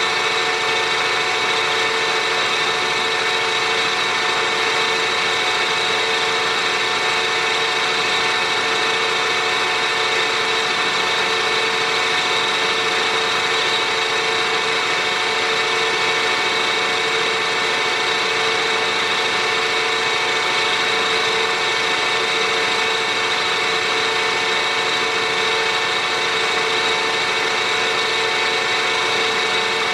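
Mill head of a small 3-in-1 lathe-mill running steadily, its end mill cutting a recess into a cast iron plate: an even whine with several steady high tones over a constant hiss of cutting.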